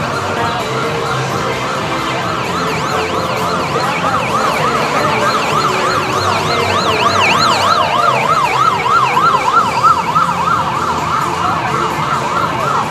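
Police escort vehicle's siren sounding a fast rising-and-falling yelp as it drives past. It grows loudest about halfway through and fades near the end.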